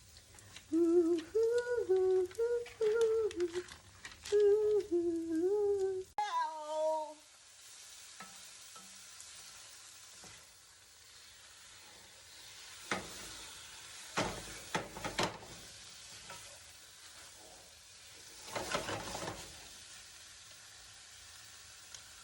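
A woman hums a short tune for the first several seconds over the steady sizzle of garlic and onion frying in a pan. After the humming stops the frying goes on, with two spells of stirring clatter near the middle and toward the end.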